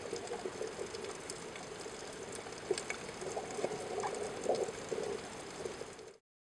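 Watery bubbling with scattered clicks and brief chirps, cutting off suddenly near the end.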